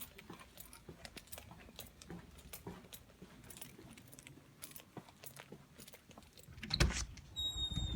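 Scattered small clicks and rustles of objects being handled and moved, with a heavy thump about seven seconds in. A brief high tone sounds just after the thump.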